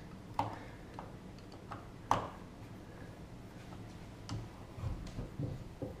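A Phillips screwdriver driving the mounting screws of a Schlage keypad lever lock, making a few sharp clicks, the loudest about two seconds in, and some low knocks near the end.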